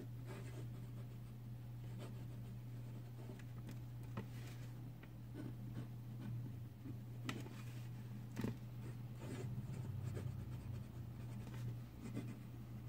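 Steel nib of a Jinhao X750 fountain pen writing on paper: faint, irregular scratching with small ticks as the nib touches down and lifts between strokes, over a steady low hum.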